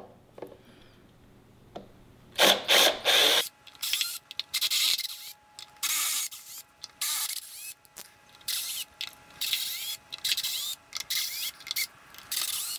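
Cordless drill/driver backing Phillips-head screws out of a subwoofer's plate-amplifier panel. It runs in a series of short bursts with brief pauses, starting about two seconds in after a few light clicks.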